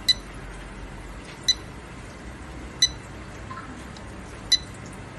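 Handheld thermal inkjet printer's touchscreen beeping four times, short high beeps about a second and a half apart, each one a stylus tap on the screen registering as the text size is reduced.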